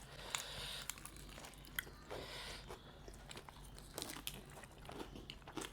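Quiet eating sounds: crab shell cracking and being picked apart, with chewing and a few sharp clicks.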